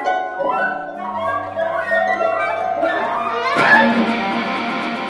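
Improvised experimental music: plucked concert harp notes over held low tones, with a brighter, noisier swell building about three and a half seconds in.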